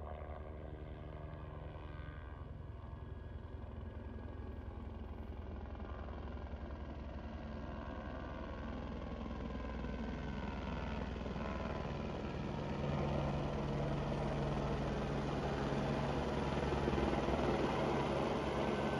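Helicopter flying overhead, its rotor beating steadily and growing louder as it comes closer, with a jump in loudness about two-thirds of the way through.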